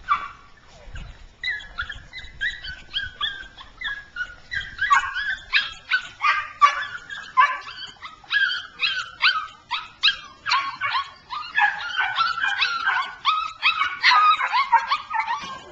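Young puppy whining and yipping over and over in short high-pitched cries, several a second.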